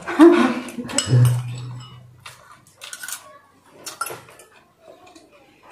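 A metal spoon clinking and scraping against a small ceramic bowl while eating, in a few scattered light clinks. A brief vocal sound and a low hum in the first two seconds.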